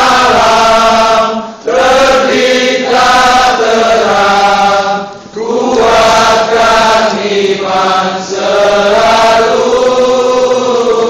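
A group of voices singing a farewell song together in long, held phrases, with short breaks between phrases.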